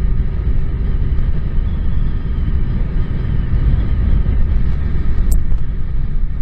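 Suzuki Bandit 1200 inline-four motorcycle running at a steady cruising speed, heavily overlaid by wind rush and buffeting on the microphone. A single short click comes about five seconds in.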